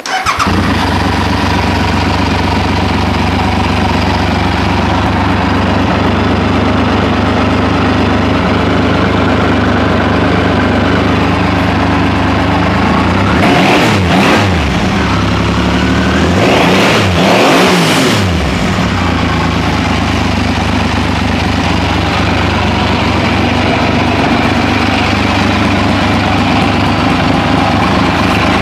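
Triumph Legend TT motorcycle's three-cylinder engine running at a steady idle. It is revved twice about halfway through, the pitch rising and falling each time, then settles back to idle.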